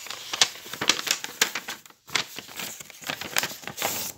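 Paper pages of a notebook being turned and handled over a textbook: a run of rustling and crinkling with sharp page flicks, pausing briefly about two seconds in.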